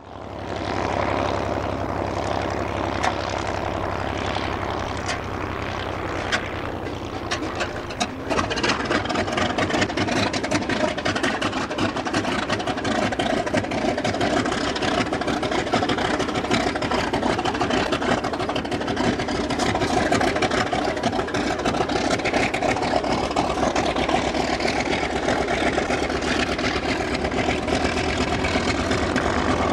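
Wright R-2600 Cyclone radial engine of a TBM-3E Avenger running on the ground with the propeller turning. About eight seconds in the sound abruptly becomes rougher and slightly louder, and it stays that way steadily to the end.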